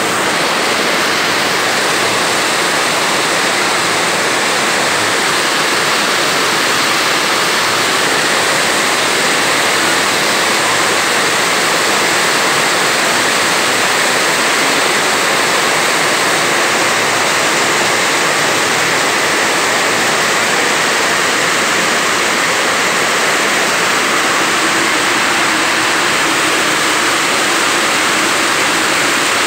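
Heavy rain pouring down, a loud, steady hiss of falling water that does not let up.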